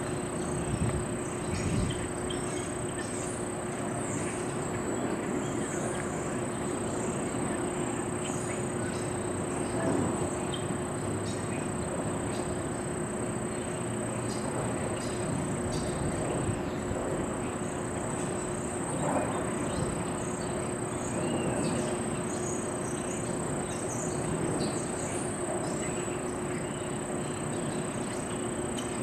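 Outdoor ambience: a steady wash of background noise with a continuous low hum and a continuous high, thin whine, plus faint distant voices once or twice.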